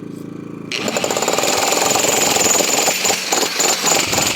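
A freshly rebuilt 1700-watt electric jackhammer starts about a second in and hammers rapidly and steadily, working again after being cleaned of grit. Before it starts, a generator engine hums steadily.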